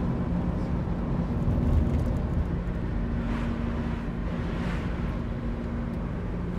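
Car engine humming steadily with a low rumble, heard from inside the cabin, with two soft swishes about halfway through.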